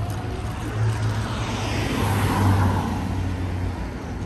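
A car passing by on the street: its tyre and engine noise swells to a peak about two seconds in, drops in pitch as it goes past, and fades, over a steady low traffic hum.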